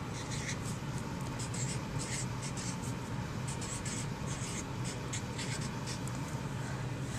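Felt-tip marker writing on poster board: a run of quick, short scratchy strokes as the letters are drawn, over a steady low hum.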